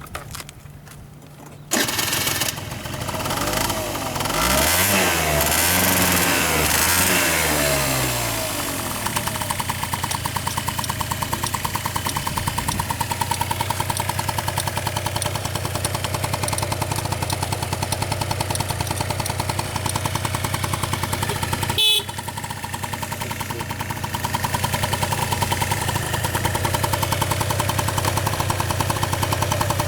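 Honda Dio scooter engine starting about two seconds in, revved up and down a few times, then idling with a steady, even pulse. A brief sharp click with a short dip in the engine's level comes about two-thirds of the way through.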